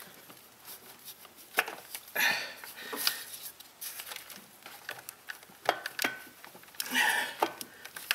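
Hands working plastic electrical connectors, wiring and hoses in an engine bay: scattered light clicks and knocks, with two longer rustles about two seconds in and about seven seconds in.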